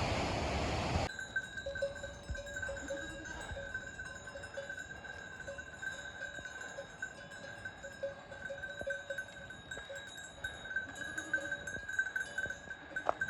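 Livestock bells jingling continuously, with two steady ringing pitches that flicker. A loud rushing noise plays first and cuts off abruptly about a second in.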